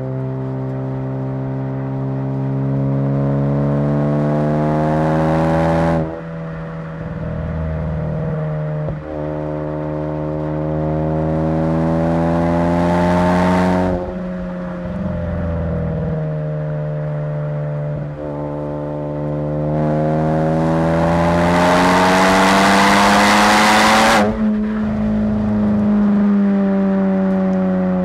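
Big-turbo 2015 Ford Focus ST, a 2.0L EcoBoost four-cylinder with a BorgWarner EFR-6758 turbo, accelerating hard in three long pulls. Each time the engine note climbs and then breaks off abruptly at a gear change. A hiss builds toward the end of each pull, loudest on the last.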